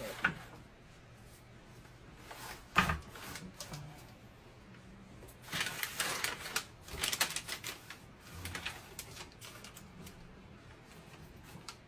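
Gloved hands handling a painting canvas on a wire rack: scattered clicks and taps, one sharp knock about three seconds in and a quick run of clicks around six to seven seconds.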